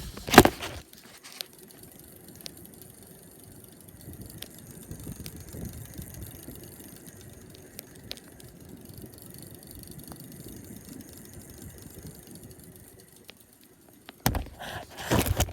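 Hampton Bay Minuet ceiling fan running steadily on high, a low whir of motor and moving air with a few faint ticks. A sharp knock about half a second in, and louder irregular knocks and rustling near the end.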